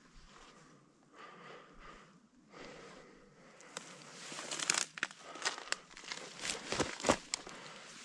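Footsteps and rustling through dry grass and brush: faint at first, then from about halfway through louder crackling and swishing as stalks and twigs brush and snap.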